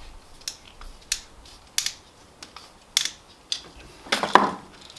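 Hand work on a circuit breaker in an electrical sub panel: a series of sharp metallic clicks, with a longer, louder scraping rattle about four seconds in.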